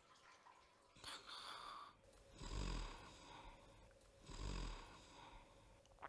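A man snoring in his sleep: two loud snores about two seconds apart, each with a low rattle, after a softer breath.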